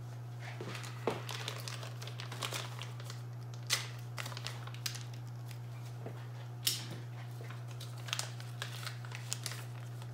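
Plastic parts bag crinkling as it is handled, with a few sharper clicks, over a steady low hum.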